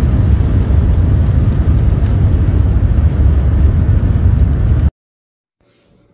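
Loud, steady low rumble of a moving car heard from inside the cabin, with faint quick high clicks over it. It cuts off abruptly about five seconds in, leaving only a faint low hum.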